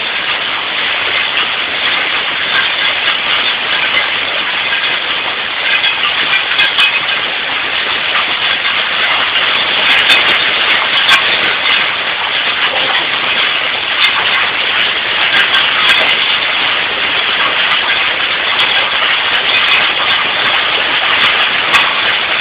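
Heavy rain mixed with hail pouring down in a dense, steady hiss. Sharp clicks of hailstones striking are scattered through it, most of them around the middle.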